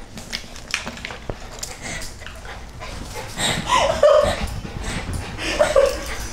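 Bichon Frise puppy whining, with short rising-and-falling whimpers about three and a half seconds in and again near the end, after a few faint taps.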